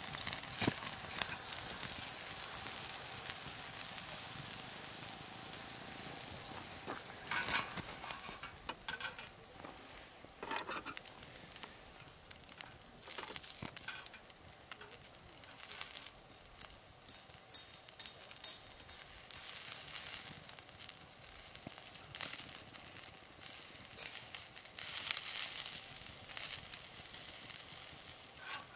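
Meat sizzling on a wire grill over a burning yeontan coal briquette, a steady hiss with fat crackling and popping throughout. It is louder for the first several seconds and again briefly near the end.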